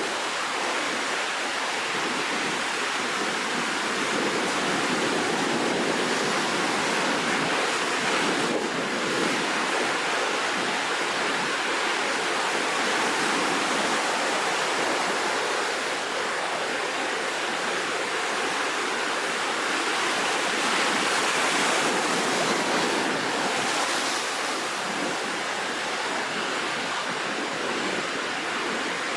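Rough sea surf ahead of a typhoon: waves breaking continuously into a steady rush of water that swells and eases a little.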